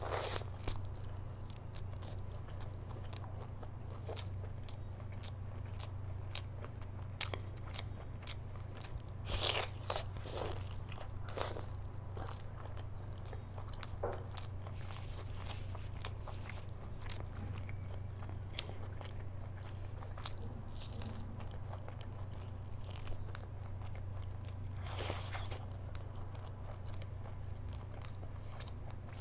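Close-miked eating: biting and chewing meat off a curried mutton leg bone, with wet mouth clicks and smacking, and a few louder bites around a third of the way in and again near the end. A steady low hum runs underneath.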